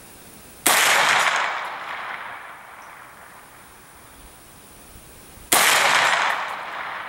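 Two rifle shots from a 9mm AR-9 carbine, about five seconds apart, each with a sharp crack and a long echoing decay.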